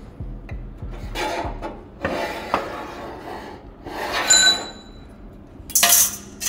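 A hand rubbing and pushing along a bare steel quarter panel, setting the panel's position: three scraping strokes, one with a brief squeak. About six seconds in there is a short, harsh crackling burst, a MIG tack weld being struck.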